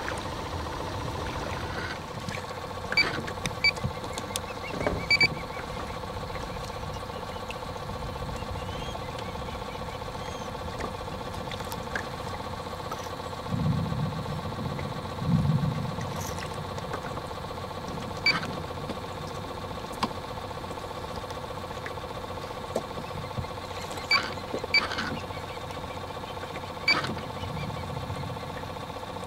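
A small electric motor hums steadily with several even tones. Scattered light clicks sound over it, and a couple of dull low thumps come about halfway through.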